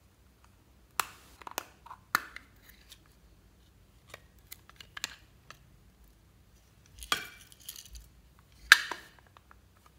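A small plastic case being handled and snapped open with a few sharp clicks, then light ticks, then square plastic sequins spilling out onto a glass dish with rattles and clicks, the loudest clack near the end.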